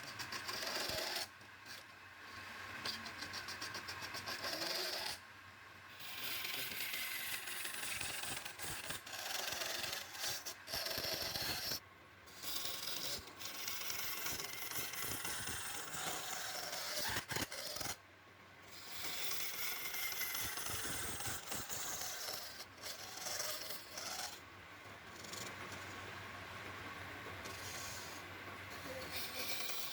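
Abrasive rubbing on wood, as with a rasp or sandpaper, in a long run that stops briefly several times.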